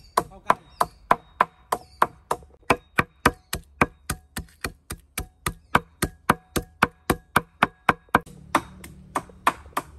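A steel cleaver mincing raw chicken on a round wooden chopping block: quick, even chops at about three or four a second. Near the end a low steady hum comes in and the chops grow fainter.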